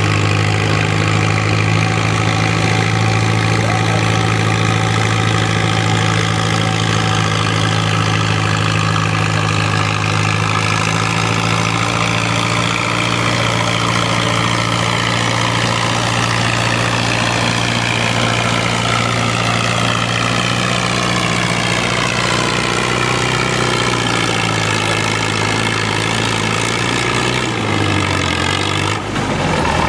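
Vintage Case tractor engine running hard as it pulls a weight-transfer sled. Its pitch slowly sinks over the second half as it lugs under the building load, then drops off abruptly near the end.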